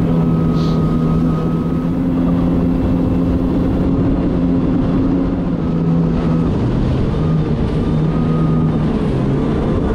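Kawasaki Ultra 310 LX jet ski's supercharged four-cylinder engine running at cruising speed, a steady engine note over a rush of water and wind. About two-thirds of the way through, the note drops and wavers as the craft slows.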